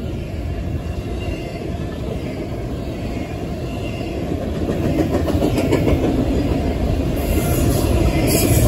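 Double-stack intermodal well cars rolling past close by: a steady low rumble of steel wheels on rail, getting louder over the last few seconds.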